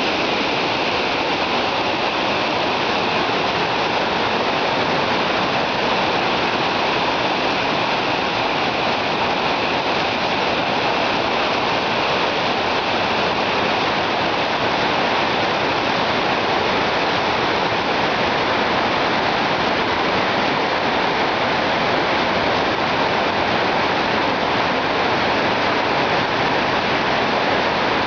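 Waterfall: water falling and splashing into its pool, a loud, steady rush with no change throughout.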